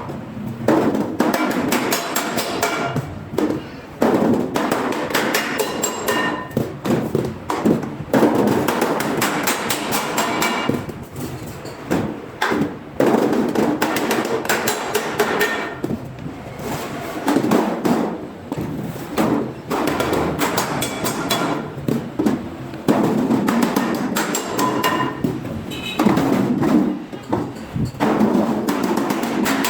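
Hammers striking sheet steel in quick, irregular blows, each with a short metallic ring.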